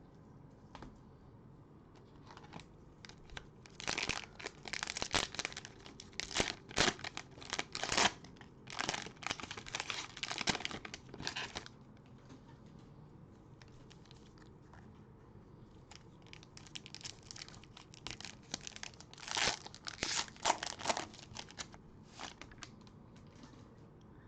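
Cellophane wrapper of a trading-card pack being torn open and crinkled, in two spells of rustling and tearing, the first starting about four seconds in.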